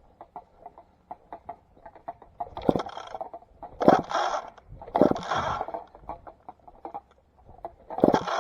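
McCulloch 850 two-stroke chainsaw being pull-started: four hard yanks of the starter rope, each a short loud burst as the engine turns over, with small clicks and taps before the first pull.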